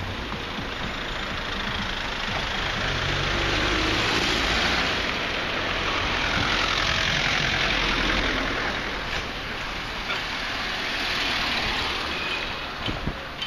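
Street traffic: car engines and tyre noise of passing vehicles, swelling twice as cars go by.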